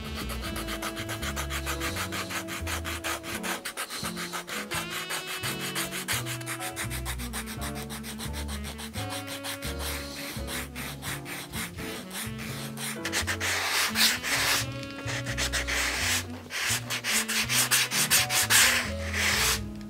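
Sandpaper rubbed in quick back-and-forth strokes along the sole edge of a welted leather shoe, smoothing the freshly trimmed rubber half sole and leather sole. The strokes grow louder and harsher over the second half, when a sanding block is worked across the sole.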